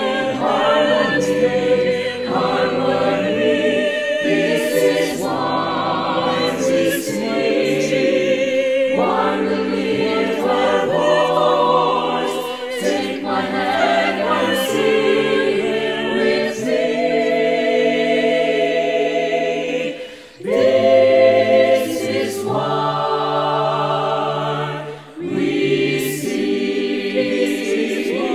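Mixed choir of sopranos, altos, tenors and basses singing in harmony, with two brief breaks between phrases in the second half.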